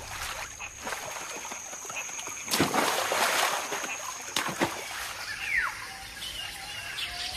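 Water splashing and sloshing in a river, with a louder splash about two and a half seconds in and a shorter one a couple of seconds later. Birds chirp briefly in the second half.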